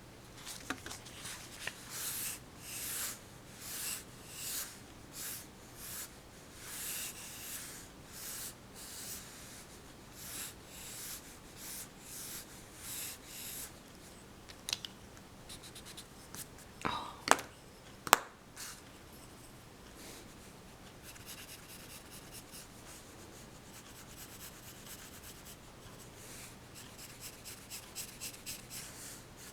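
Pencil drawing on paper: a steady run of long strokes, one or two a second, then two sharp clicks a little past halfway. After that come fainter, quicker strokes that turn into short, rapid hatching near the end.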